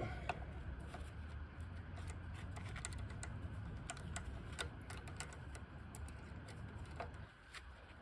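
Scattered small metallic clicks and taps as gloved hands handle the key clamp of a Silca AY100 key cutting machine, over a low hum that stops about seven seconds in.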